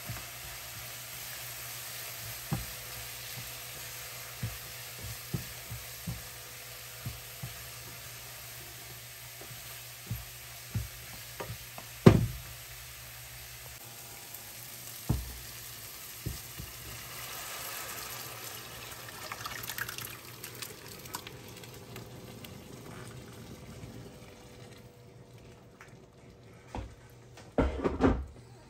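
Onion, tomato and spice tadka sizzling in a non-stick pan while a silicone spatula stirs and scrapes, with scattered knocks of the spatula on the pan and pot and one loud knock about twelve seconds in. The sizzle fades near the end, followed by a short clatter.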